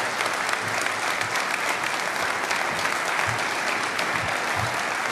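An audience applauding steadily: many hands clapping at once, after a speech ends.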